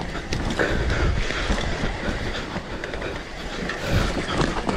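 Mountain bike descending a steep, loose dirt trail, heard close up: tyres rolling over the dirt and the bike rattling and knocking over bumps.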